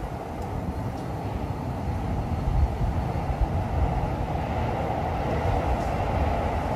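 Steady low rumbling noise that slowly grows louder.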